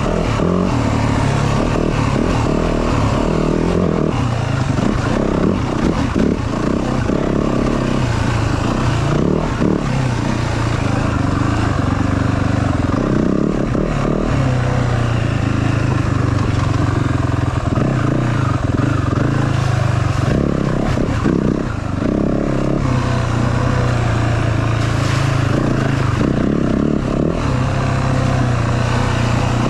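Yamaha WR450F dirt bike's single-cylinder four-stroke engine being ridden, its pitch rising and falling with the throttle, with scattered knocks and clatter from the bike on rough ground.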